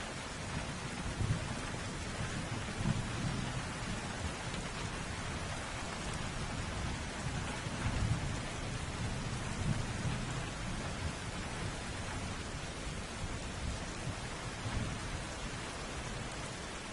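Steady heavy rain hissing, with low rolls of thunder rumbling and swelling several times.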